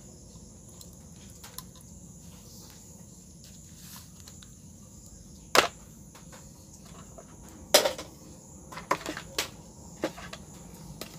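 A few sharp clicks and taps over a steady high hiss: a loud click about halfway through, another a couple of seconds later, then several smaller ones close together near the end.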